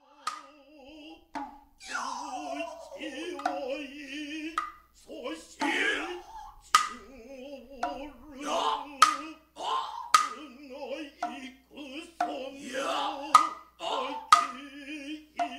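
Noh music: sharp, irregular drum strikes between long, wavering chanted voices with heavy vibrato.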